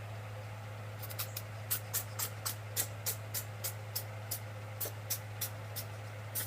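A kitten sneezing over and over: a long run of short, sharp sneezes, about three a second, starting about a second in, over a steady low hum.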